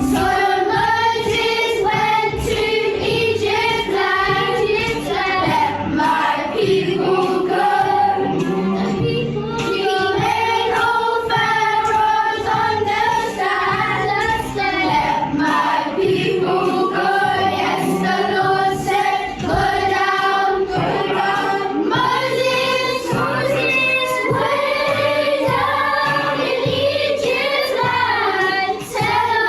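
A group of children singing a song together over musical accompaniment with a steady beat.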